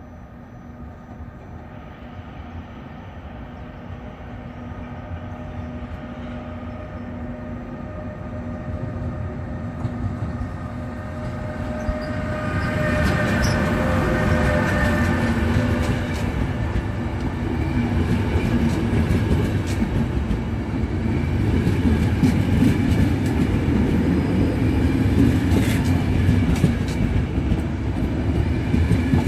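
Electric train approaching on the rails, growing steadily louder. About halfway through, a whine of several steady tones comes in, and short clicks of the wheels over rail joints follow as it draws near.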